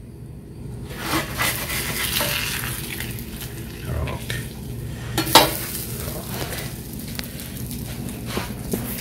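Brisket and cheese sizzling on a hot flat-top griddle, with a metal spatula scraping and lifting the meat off the steel. A sharp clink or knock about five seconds in.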